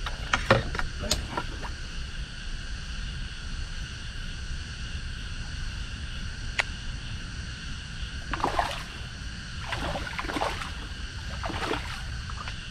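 A hooked fish splashing at the water's surface as it is played on a rod: a couple of short splashes right at the start and several more in the last few seconds, over a steady high-pitched drone.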